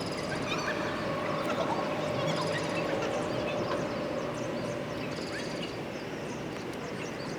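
Outdoor background: a steady low wash of noise with a faint steady hum, and small birds chirping lightly throughout.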